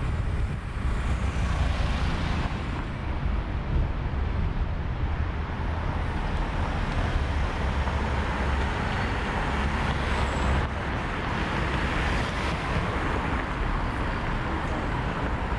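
Street traffic: a van and then a car drive slowly past close by, engine and tyre noise over a steady low rumble of road traffic.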